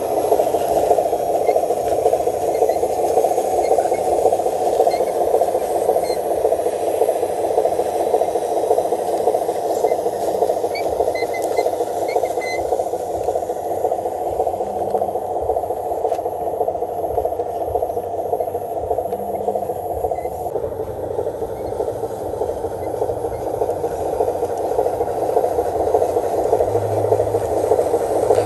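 A small electric RC truck's motor and gearbox whirring steadily with a rattling edge as the model drives along.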